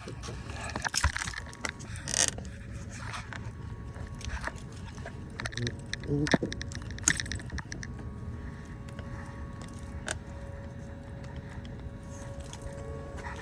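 Scattered clicks, knocks and rattles of hands working plastic and metal parts under a car's hood to get at a battery connector, over a faint steady hum.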